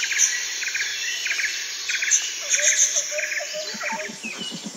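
Insects and birds chirping, with short clusters of high chirps repeating about every two-thirds of a second. Near the end a low, rapid pulsing joins in.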